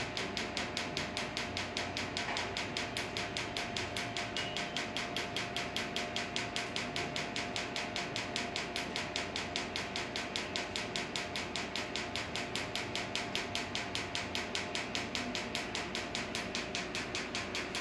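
Q-switched skin laser firing a rapid, even train of sharp snapping pulses, about five a second, as the handpiece is passed over pigmented burn-scar skin on the face during one treatment pass.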